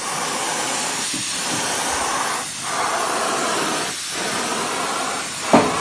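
Compressed-air spray gun with a siphon cup spraying adhesive: a steady hiss of air and spray that dips briefly a few times, with a short thump near the end.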